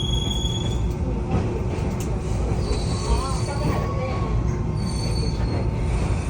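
Enoden electric train running, with a steady low rumble. A high-pitched wheel squeal comes and goes about three times.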